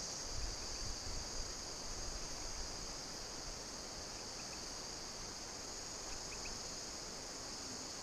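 A steady, high-pitched chorus of insects trilling from the riverbank bush, unbroken and even in level.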